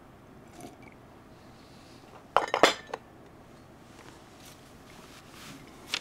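Porcelain cup clinking as it is set down on a hard surface: a quick cluster of sharp clinks about two and a half seconds in, with a lighter clink just before the end.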